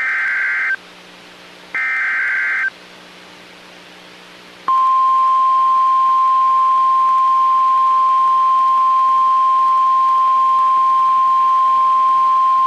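Emergency Alert System warning: the last two of the three SAME header data bursts, harsh buzzing squeals about a second each and a second apart, encoding the warning's digital header. About two seconds later the steady 1050 Hz warning alarm tone comes on and holds, announcing that a warning message follows.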